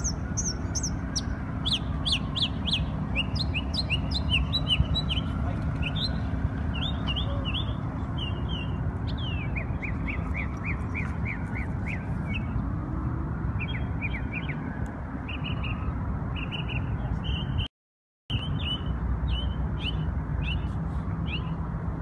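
A small songbird chirping in quick runs of short, high notes over a steady low rumble of city traffic. The sound cuts out for about half a second near the end.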